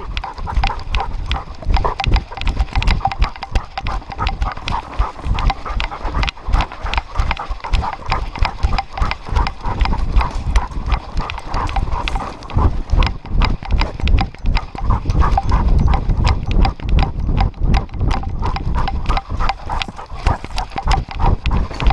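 A dog running fast on a dirt trail, heard from a camera strapped to its back: a quick, steady patter of paw falls with the camera jostling at each stride.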